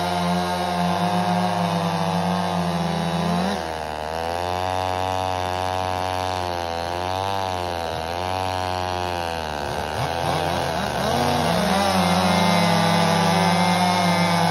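Two gas chainsaws cutting through a log at once. One saw holds a steady high pitch at full throttle for the first few seconds; from about four seconds in the pitch wavers up and down as the saws bog and rev in the wood, and about twelve seconds in a saw settles back to a steady, louder full-throttle pitch.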